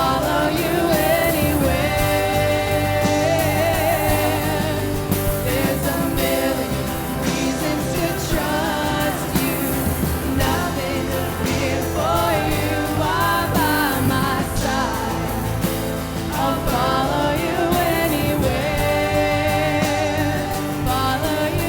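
Live worship band music: a singer's voice over instruments, with regular drum hits.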